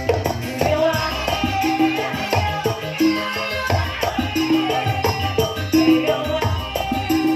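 Tarling band music playing an instrumental passage: sustained melodic notes over a steady percussion beat, amplified through a PA system.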